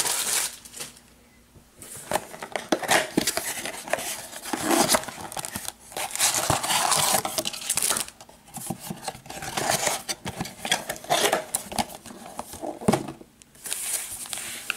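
Hands opening a cardboard trading-card box and pulling out foil-wrapped card packs: irregular crinkling, rustling and light taps, with a brief quiet spell about a second in.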